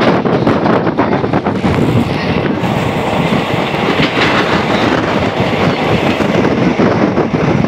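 Passenger train running at speed, heard from the open doorway of a coach: a steady loud rumble with the wheels clicking over rail joints.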